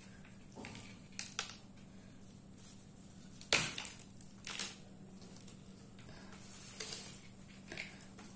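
Dried cow-dung crust being broken and picked off a cloth-wrapped bundle by hand: a few irregular crumbly crunches and scrapes, the loudest about three and a half seconds in.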